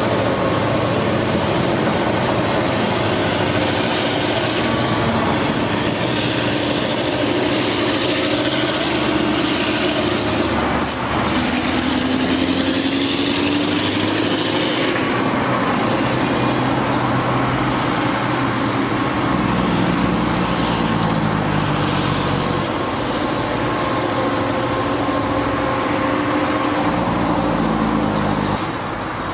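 Diesel locomotives of the Northwestern Pacific moving a long train of welded-rail cars, engines working with a steady drone and a note that shifts in pitch. The sound drops in level near the end.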